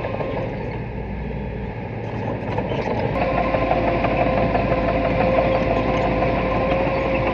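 Diesel engine of earthmoving machinery running steadily with a held whine. It eases off about a second in and picks up again, louder, about three seconds in.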